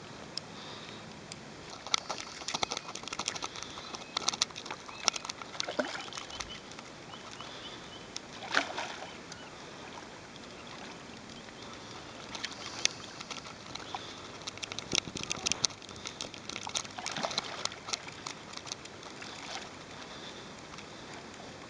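A hooked carp splashing and sloshing at the surface of shallow water as it is played on a fly rod, in several bursts of several seconds each over a steady outdoor hiss.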